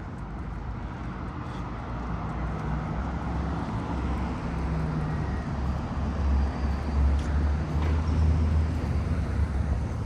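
City street traffic: vehicles passing, with a low rumble that grows louder through the second half.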